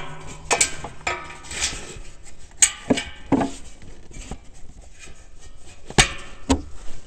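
A rubber pipe coupling being pushed and twisted by hand onto a fitting in among ATV plastics: rubbing and scuffing with a string of sharp knocks and clacks, two close together about six seconds in.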